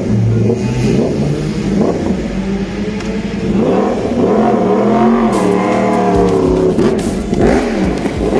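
Yamaha R1 sportbike's inline-four engine revved hard as it pulls away, its pitch sweeping up and down several times, loudest about halfway through.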